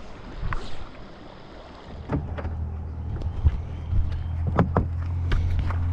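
A steady, low engine-like hum that sets in about two seconds in and grows louder, with scattered sharp clicks and knocks over it.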